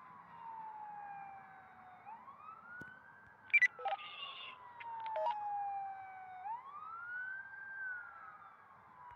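Fire engine siren wailing, its pitch sweeping slowly up and down in about two long cycles. A few sharp clicks and a short high beep break in about three and a half to four seconds in.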